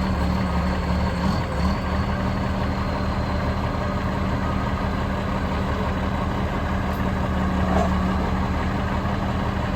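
Heavy vehicle engine idling steadily with a constant low hum.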